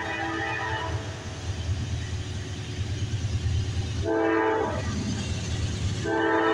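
Air horn of the lead locomotive, NS 4037, an AC44C6M diesel-electric, blowing the grade-crossing signal as the freight train approaches: a long multi-note blast ends about a second in, a short blast comes about four seconds in, and a final long blast starts near the end. A low rumble from the approaching locomotives runs beneath.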